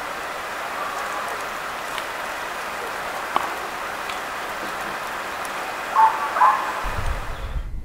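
Steady rushing forest ambience with a sharp click about three seconds in and two brief chirp-like sounds around six seconds. A low rumble comes in near the end.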